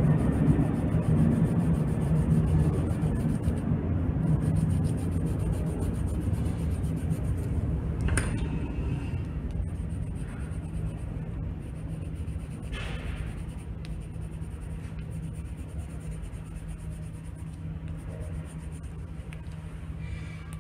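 Coloured pencil rubbing back and forth on paper while shading in a drawing, over a steady low hum; the rubbing grows gradually quieter.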